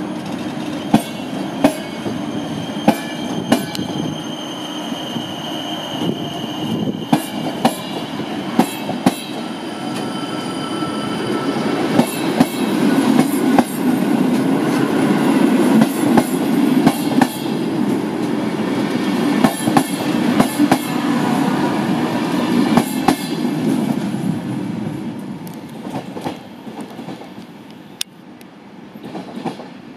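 PKP Intercity passenger coaches rolling past along a platform: wheels click over the rail joints over a steady rumble, with a few thin high wheel squeals. The rumble swells in the middle and fades near the end as the last coach moves away.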